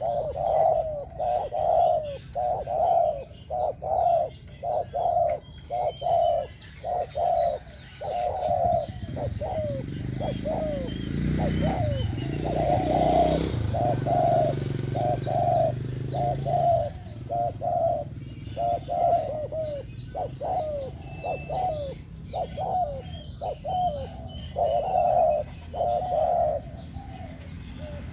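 Caged spotted dove cooing over and over, a quick run of short, low coos every half-second or so. A low rumble swells and fades in the middle.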